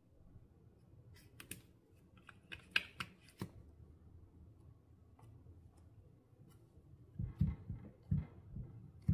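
Clear slime being worked by hand: scattered sharp clicks and pops in the first few seconds, then a cluster of soft, low squishy thuds near the end.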